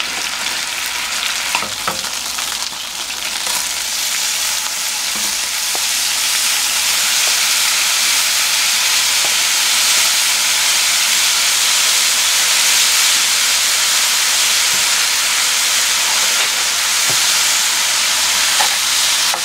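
Pieces of dombaegi (salted shark meat) sizzling in cooking oil in a nonstick frying pan. The steady frying hiss grows louder and fuller about five seconds in, with a few light utensil clicks near the start.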